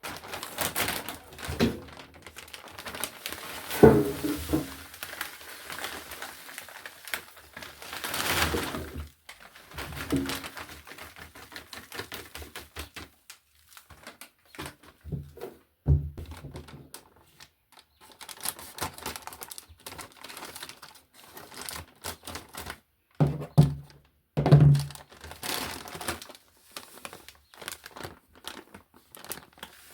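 Household objects being handled in a small room: irregular clattering and clicking with crinkling of packaging, broken by a few louder thuds.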